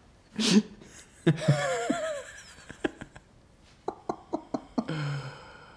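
Two men laughing in several bursts: a breathy laugh, a longer wavering one, then a run of short quick laughs about four seconds in.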